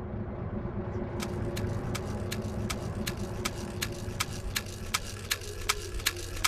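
Steady car engine hum heard inside the cabin. About a second in, the turn-signal indicator starts ticking evenly, a little under three clicks a second.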